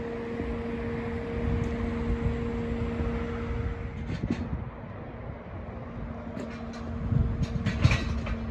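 Truck-mounted hydraulic crane and truck engine running steadily under load, with a steady whine, as a pallet is lifted. Several knocks and clanks come in the last two seconds.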